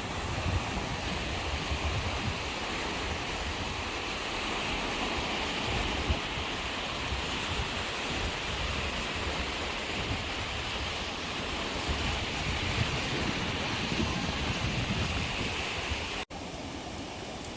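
Sea surf washing steadily, with wind gusting on the microphone. It cuts off abruptly near the end to a quieter background.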